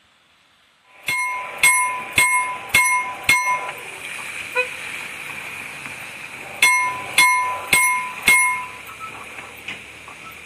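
KLD electromechanical level-crossing warning bell striking its metal gongs: five strikes about half a second apart starting about a second in, a pause of about three seconds, then four more strikes, each ringing on briefly.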